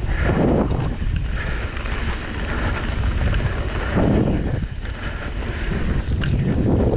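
Wind buffeting the microphone of a rider's camera during a downhill run: a loud, gusting rumble that swells and eases, with scattered light clicks and rattles.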